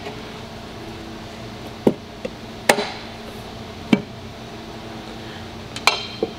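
Metal tire spoons clacking against a steel scooter wheel rim while the last tire bead is pried on by hand: about six sharp, irregularly spaced knocks.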